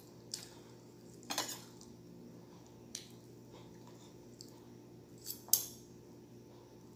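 Metal fork and knife clinking and scraping against a plate while cutting a hotcake: scattered light clinks, with a short burst of scraping about a second and a half in and the loudest clink about five and a half seconds in.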